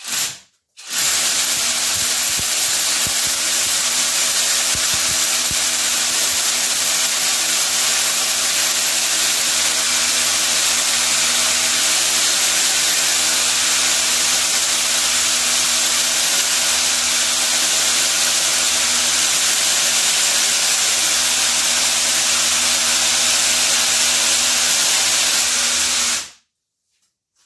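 Einhell Herocco cordless rotary hammer drilling a hole under load, running steadily for about 25 seconds and then cutting off suddenly.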